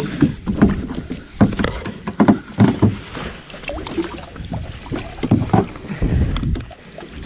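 Irregular splashing and slapping of water against the side of a fishing boat, with a small shark at the surface beside the hull.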